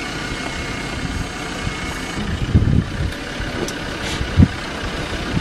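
Safari truck engine idling steadily, with a few dull low thumps about two and a half seconds in and a sharper one past four seconds.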